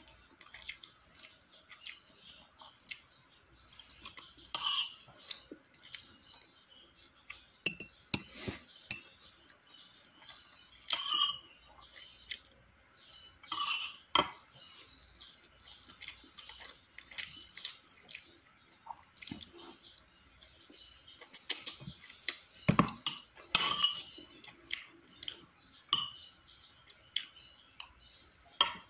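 Spoon and fork clinking and scraping against plates of rice and chicken, in scattered sharp clicks at irregular intervals, a few of them louder.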